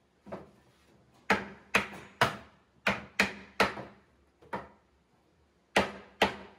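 Mallet blows on a chisel, chopping out the waste of a lapped dovetail joint in wood: about nine sharp knocks in uneven groups of two or three.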